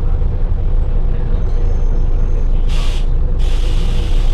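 Scania L94UB city bus's rear-mounted engine running with a steady low rumble, heard from inside the cabin. About three seconds in come two hisses of released compressed air from the bus's air system: a short one, then a longer one.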